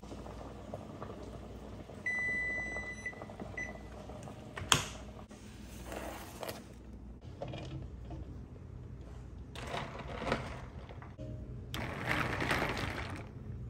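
Electric range's kitchen timer beeping as it runs out about two seconds in: one steady high beep of about a second, then a short one. A sharp knock follows near the middle, then brief scattered clatters as the pot is handled.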